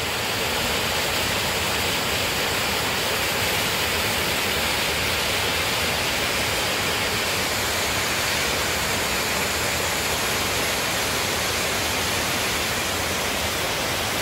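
Teneriffe Falls, a tall waterfall cascading down a rock face, rushing with a steady, even noise of falling water.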